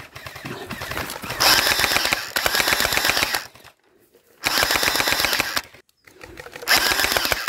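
Gel blaster (hydrogel airsoft gun) firing on full auto in three bursts, the first about two seconds long and the later two shorter, each made of rapid even shots; the sound cuts off abruptly between bursts.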